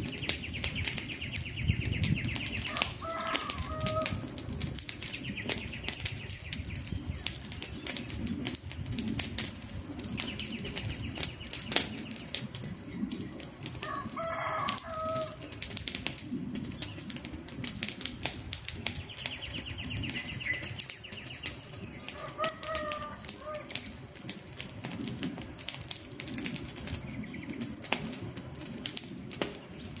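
Wood campfire crackling with frequent sharp pops over a low rush of flames. A bird calls briefly three times, and a high trill comes and goes several times in the background.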